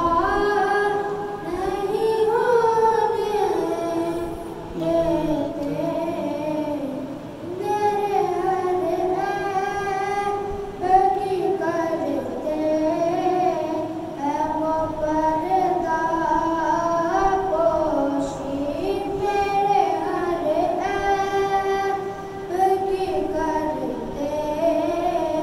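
A boy singing a naat, an Urdu devotional song in praise of the Prophet, as a solo voice. He sings long, held melodic lines that glide between notes, with short breaks between phrases.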